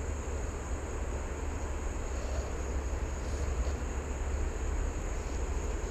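Steady rushing of creek water around the wader, with a deep low rumble, likely from water and wind against the microphone.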